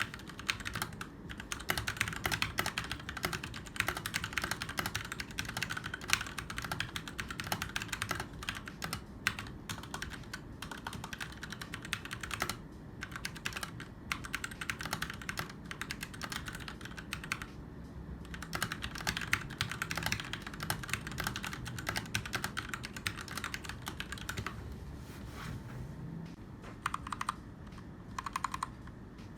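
Typing on a Keychron K4 mechanical keyboard with linear Gateron Red switches and ABS keycaps: a fast, continuous run of keystrokes, with a couple of brief pauses in the middle.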